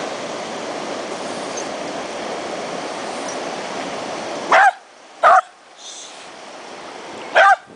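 Steady rush of falling water, then a dog barks three times, short and loud, starting about two-thirds of the way through; the water noise drops away after the first bark.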